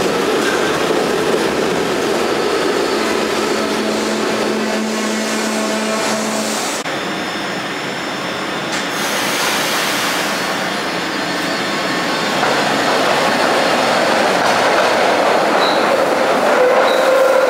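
SEPTA Kawasaki light-rail trolley pulling out of an underground station and running off into the tunnel: a steady running noise of motors and steel wheels on rail, with a steady hum from about three to seven seconds in. The wheels begin to squeal near the end.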